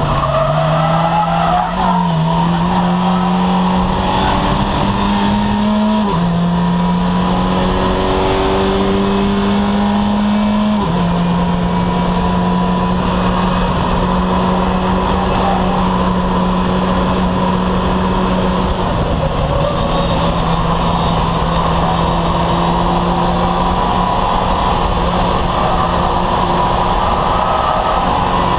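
VW Fun Cup race car's engine heard from inside the cockpit, pulling under load with road and wind noise. The pitch climbs slowly and drops sharply with upshifts about 6 and 11 seconds in, then dips briefly around 19 seconds before running fairly steady.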